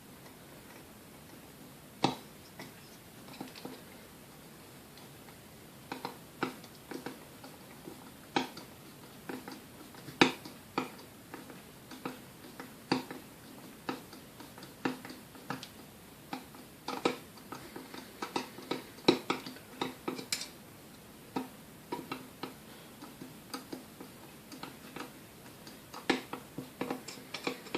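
Irregular metal clicks and taps as a screw is worked to lever the coffee mill's grinding blade up off its shaft. The clicks are sparse at first and come thick and fast from about six seconds in.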